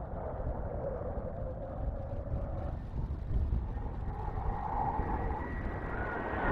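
Twin General Electric F404 turbofan engines of a CF-18 Hornet approaching at low level: a distant rumble with a faint whine that grows slowly louder toward the end.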